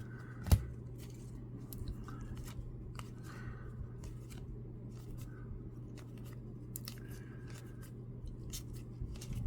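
Baseball trading cards being leafed through by hand: soft slides and small clicks of card against card, with one sharp tap about half a second in, over a steady low hum.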